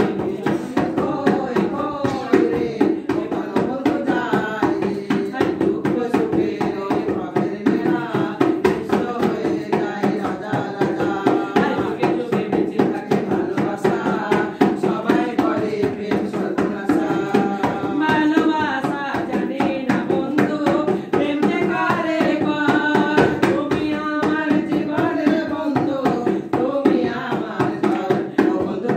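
A song playing: a voice singing over a fast, steady drum beat.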